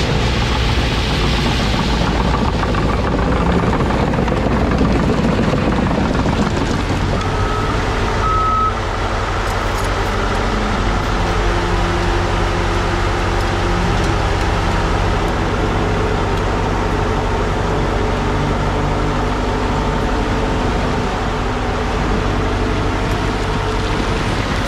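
Heavy diesel engines of a bulldozer and a dump truck running steadily while the truck, stuck in loose gravel, is pulled out by chain. Two short high beeps sound about eight seconds in.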